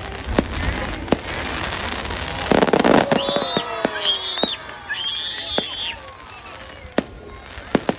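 Fireworks going off: sharp bangs and a dense burst of crackling about two and a half seconds in, followed by high wavering whistles for a few seconds, then scattered single cracks.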